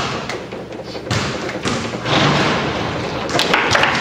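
Foosball being played: the hard ball struck by the plastic figures and knocking off the table walls, with rods clacking. There are hits at the start and about a second in, then a quick flurry of sharp knocks near the end.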